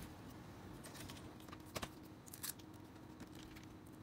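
A few faint, sharp clicks of small plastic and metal parts being handled as a laptop battery is seated and a small screwdriver is picked up for its screws, two of them stronger a little under two seconds in, over a faint steady hum.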